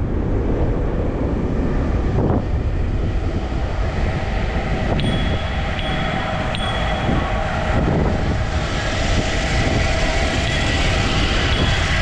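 Steady loud rumble of wind on the microphone and road noise while riding, with a few brief high squeals about five to seven seconds in.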